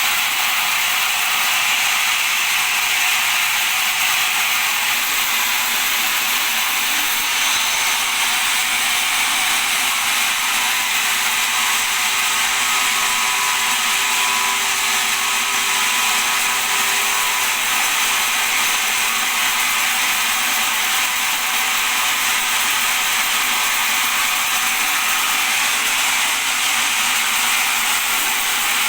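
Newly installed bandsaw running: a steady, even machine noise with no pauses.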